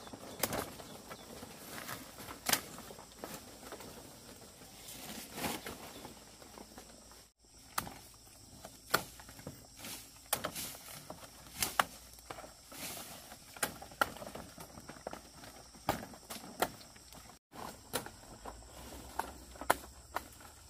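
Scattered sharp clicks and snaps at irregular spacing, with a rustling hiss between them. The sound cuts out abruptly twice, about seven and seventeen seconds in.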